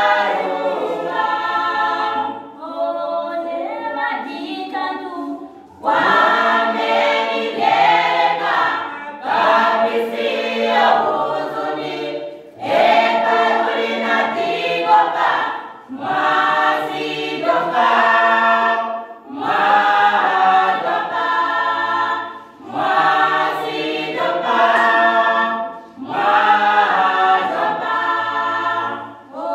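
Youth choir, mostly girls' voices, singing a gospel song a cappella in short phrases of about three seconds, each followed by a brief breath pause.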